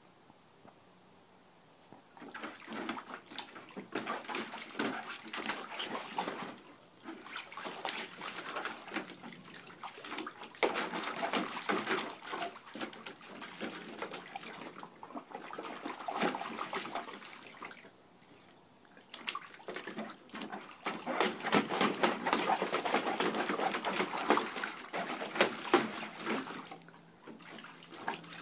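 A Great Dane puppy splashing about in the water of a plastic kiddie pool, in irregular bursts of sloshing that start about two seconds in, with a short lull about two-thirds of the way through.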